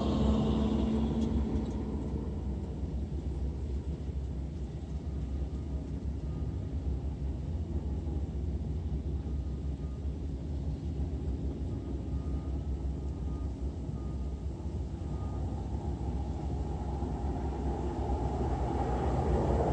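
Passing road traffic heard from inside a stopped vehicle over a steady low cabin rumble: a vehicle fades away at the start, and others approach, growing louder near the end.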